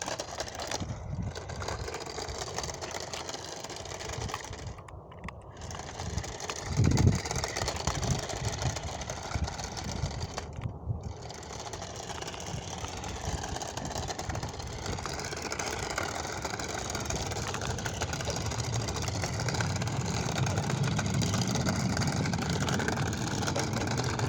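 Toy remote-control Batmobile's small electric motor whining, its pitch drifting up and down as it drives, over the noise of its wheels rolling on a road; a single knock about seven seconds in.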